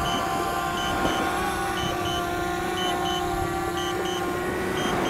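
DJI Spark mini drone's propellers whining steadily as it hovers down to land. Over it, a low-battery alert sounds as pairs of short high beeps about once a second.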